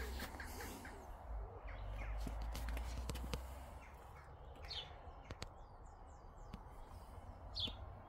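Quiet outdoor background with low wind rumble on the microphone, a few faint clicks, and two short high bird chirps, one about five seconds in and one near the end.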